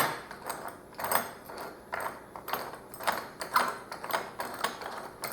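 Irregular sharp metallic clicks and clinks, about a dozen in a row, from tight bolts and hardware being worked loose with hand tools on the router mount of a shop-built panel saw table.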